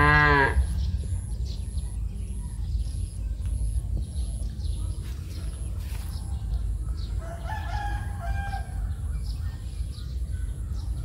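A rooster crowing, a fainter wavering call about seven seconds in, after a short loud pitched cry right at the start, over a steady low rumble.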